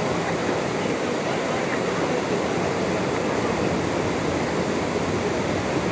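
Steady rush of water pouring through an opened canal sluice gate.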